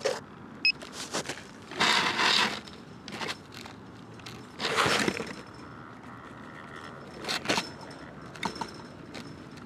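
Handling noise from a tricopter being shifted against a chain-link fence: scattered clicks and knocks, with two short rustling scrapes about two seconds and about five seconds in.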